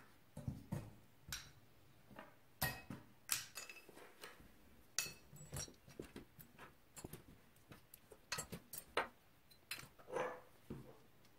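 Dismantled carburetor parts, a metal body, float bowl, spring and slide, being handled and set down into a wire-mesh cleaning basket on a wooden bench: a string of light, irregular metallic clinks and knocks, the sharpest about three seconds in and again near nine seconds.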